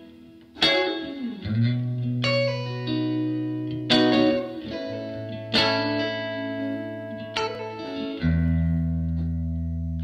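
Background guitar music: chords struck about every one and a half to two seconds, each ringing out, over long held low notes.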